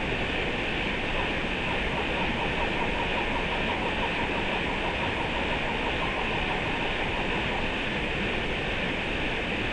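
Steady rushing of river water, an even hiss and rumble with no breaks.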